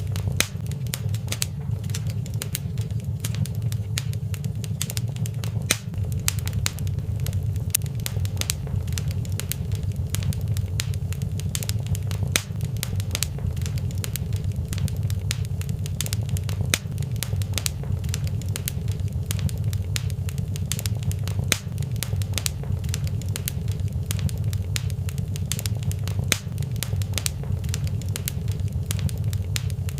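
Wood fire crackling in a fireplace: frequent sharp snaps and pops over a steady low rumble.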